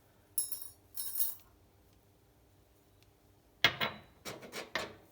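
Teaware and tea being handled: two short, high rattles, then a sharp knock about three and a half seconds in and a few quick clatters near the end.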